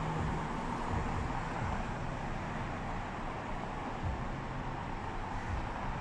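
Steady outdoor background noise: an even hiss with an uneven low rumble, like distant traffic or wind.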